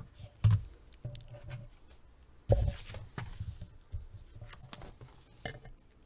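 Sheets of paper being handled and shuffled on a desk, with two soft knocks about half a second and two and a half seconds in, and light rustles and clicks between them.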